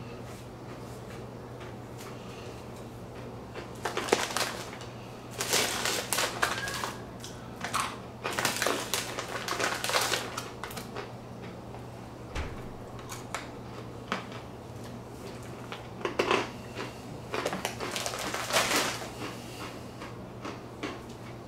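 A crinkly foil snack bag rustling as a hand rummages through hard, crunchy pretzel pieces inside it. The crackling comes in two clusters of bursts, from about four to ten seconds in and again around sixteen to nineteen seconds.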